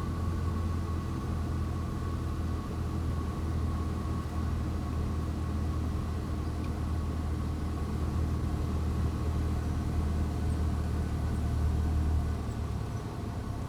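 Steady drone of an airliner's engines and airflow heard from inside the aircraft in flight: a low rumble with a faint steady whine above it. The low rumble eases a little near the end.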